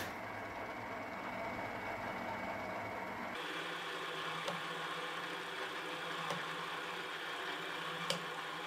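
Drill press motor running steadily while the twist bit drills a row of holes in a plastic pipe. Three short sharp clicks come about two seconds apart in the second half.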